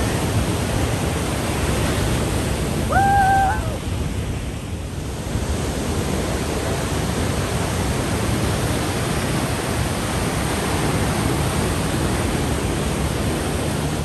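Ocean surf breaking and washing over shoreline rocks, a steady rush of water. About three seconds in, one brief high hooting call cuts through it, rising, holding and falling.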